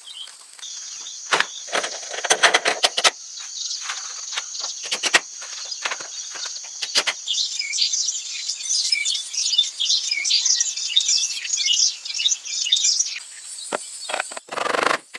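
Forest ambience: a steady high insect buzz in the first half, then dense high-pitched bird chirping. Several bursts of sharp clicks or knocks come in the first seven seconds and are the loudest sounds.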